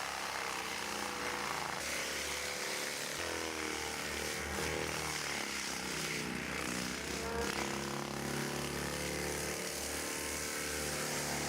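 Forestry mulching machine's engine running under load, its pitch rising and falling as it works through vegetation.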